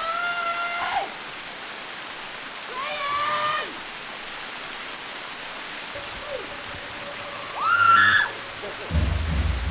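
Water of a snow-fed mountain stream rushing steadily. A high voice calls out three times over it, each call rising then held for under a second, the last the loudest. A low rumble comes in near the end.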